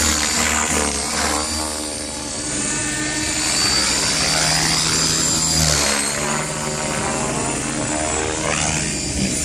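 Electric Gaui X5 RC helicopter's rotor blades and motor whining through 3D aerobatics, the pitch and tone sweeping up and down as the model flips and passes back and forth.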